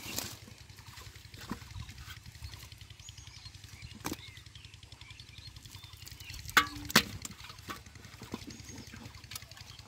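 Bare hands working in wet pond mud with small squelches and clicks, over a steady low rumble. About two-thirds through come two sharp knocks close together, the first with a brief ring, as a caught fish goes into a pot and strikes its side.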